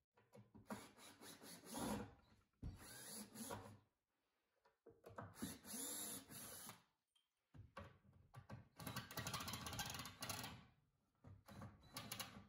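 DeWalt cordless drill/driver running in five separate bursts with a high motor whine, turning screws in a fibreboard panel; the fourth burst is the longest, about three seconds.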